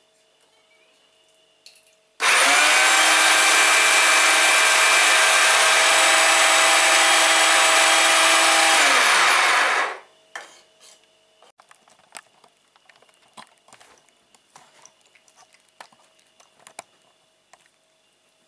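Electric meat grinder motor running for about eight seconds while meat is pressed down its feed tube: it starts suddenly with a steady whine and winds down with a falling pitch as it is switched off. Faint scattered clicks follow.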